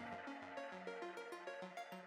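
Quiet background music: a soft melody of single notes changing in steps.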